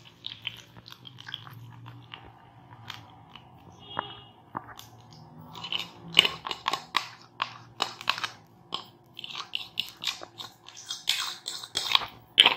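Beaten eggs sizzling and crackling in hot butter and oil in a frying pan, with irregular pops that get busier about halfway through. A fork clinks and scrapes against a plastic bowl as the egg is poured out.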